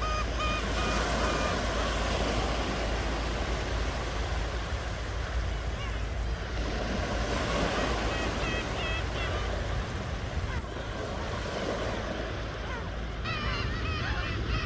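Ocean surf washing steadily on the shore, with short, repeated bird calls heard over it near the start, about nine seconds in and near the end.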